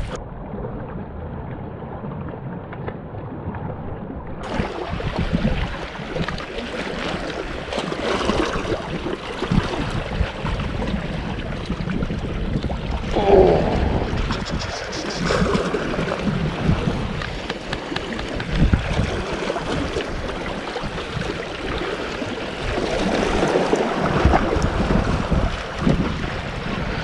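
Wind buffeting the microphone over the wash of the sea against shore rocks, with scattered short knocks from handling the rod and spinning reel while a fish is played.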